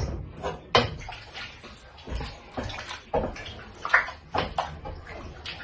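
Water sloshing and splashing in a cooking pot of rice and water, with irregular knocks and scrapes, as oil is added and the pot is worked.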